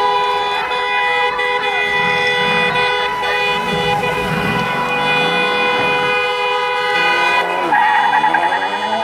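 A Mercedes-AMG GT's twin-turbo V8 revs up and down several times, then revs hard rising in pitch as it pulls away near the end. Under it, a vehicle horn is held down in one steady, unbroken blare.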